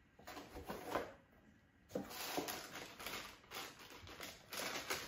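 Clear plastic packaging bag crinkling and rustling in the hands, in irregular bursts, with a short lull about a second in.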